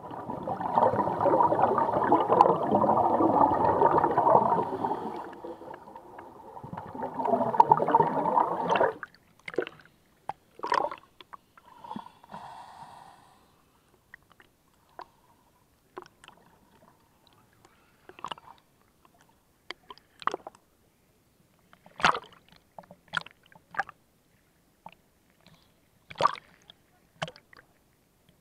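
Scuba exhaust bubbles rushing past underwater in two long bursts, a diver breathing out through a regulator. About nine seconds in the bubbling stops, and short scattered sloshes and splashes of small waves at the surface follow.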